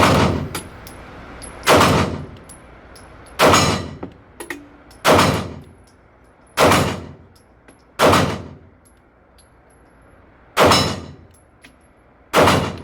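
Smith & Wesson M&P 2.0 Metal pistol fired eight times at a steady pace, about one shot every one and a half seconds, with a longer pause before the last two. Each shot is loud and sharp and dies away over a fraction of a second.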